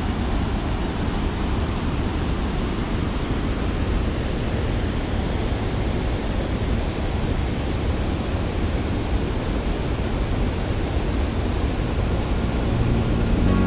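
Tännforsen waterfall's rushing water: a steady, even noise. Music fades in right at the end.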